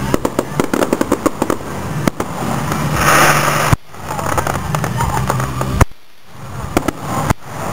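Fireworks going off: a rapid string of sharp pops and crackles, then a loud hissing burst about three seconds in. The sound cuts out abruptly a few times.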